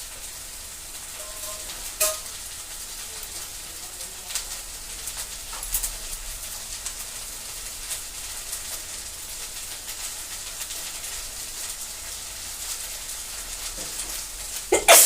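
A steady high hiss with faint crackles and a few clicks, then a person's loud sneeze right at the end.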